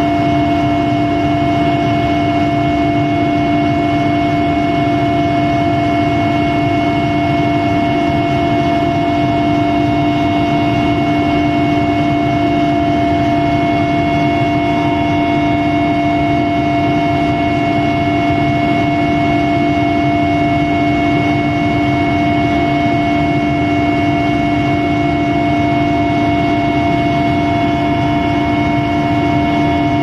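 Aircraft engine running steadily in flight: an even rushing noise with a few constant tones held above it.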